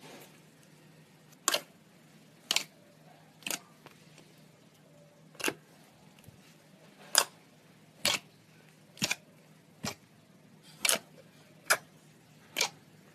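Slime being handled close to the microphone, giving about eleven short, sharp pops or clicks, roughly one a second at uneven intervals.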